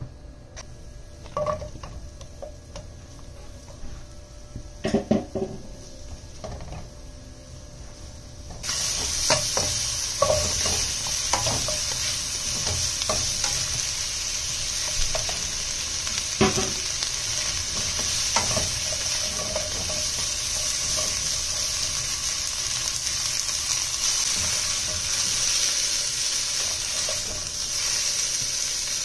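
A few spatula knocks on a nonstick wok over a faint sizzle; about a third of the way in, a loud sizzle starts suddenly as wet broccoli, cauliflower and mushrooms go into the hot oil, then carries on steadily while they are stir-fried with the spatula clicking against the pan.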